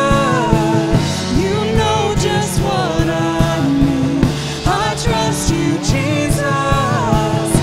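Contemporary worship song played by a band with a steady drum beat and sustained keyboard or guitar chords, a voice singing long, gliding phrases over it.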